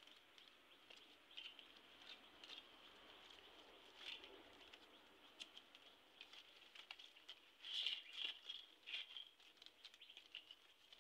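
Faint crackling and rustling of dry coconut-palm leaflets as they are folded and woven by hand into a mat, with a cluster of louder crackles about eight seconds in.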